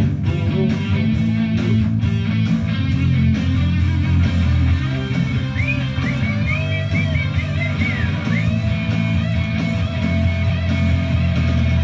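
Rock song playing: an instrumental stretch of guitar-driven rock between sung lines, with a lead guitar line of bending notes in the middle.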